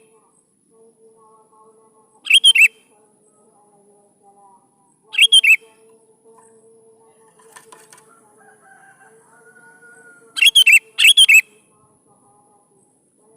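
Sooty-headed bulbul (kutilang) singing short, bright phrases of quick notes, four in all, a few seconds apart, the last two in quick succession.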